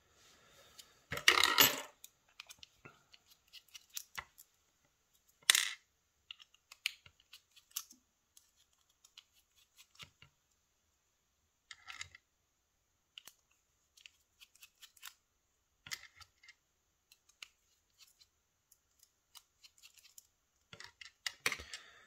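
Small screwdriver working on a brass lock cylinder as it is taken apart, with scattered light metallic ticks and scrapes and a few sharper clicks, the loudest about one and a half and five and a half seconds in, as small parts are unscrewed and set down.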